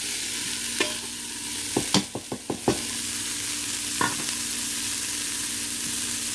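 Chopped cabbage tipped into a hot stainless steel Instant Pot inner pot on sauté mode, where onions and spices are sizzling steadily in oil. About two seconds in there is a quick run of knocks as the bowl and spatula clatter against the pot, and another single tap near four seconds.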